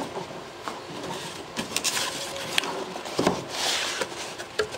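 Cardboard box being opened by hand: its flaps and lid rub and scrape, with a few light knocks and clicks.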